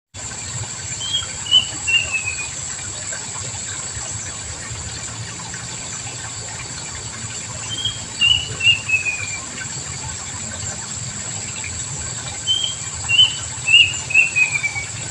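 A bird singing three short phrases, each a quick run of notes stepping downward in pitch, over a steady high hiss and a low background rumble.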